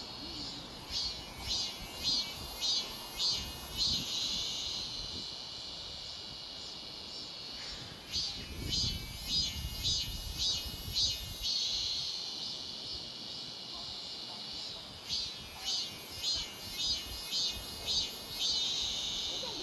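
Korean robust cicada (참매미) singing its 'maem-maem' call: three phrases of rapidly pulsing high-pitched notes, each ending in a longer held note.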